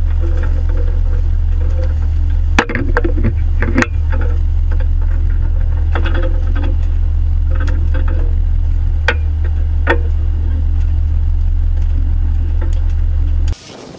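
Fishing boat's engine running with a steady low drone, with a few sharp knocks on deck now and then. It cuts off suddenly near the end.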